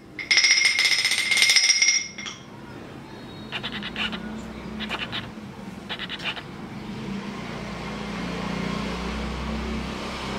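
DF64 coffee grinder with SSP cast burrs running with a high whine for about two seconds, then stopping. Three short rattles follow as the dosing cup is handled.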